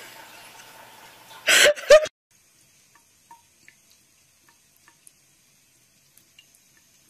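A short, loud, noisy burst about a second and a half in, cut off abruptly. Then it is very quiet, with faint scattered ticks as a cat licks at a thin trickle of water from a bathroom tap.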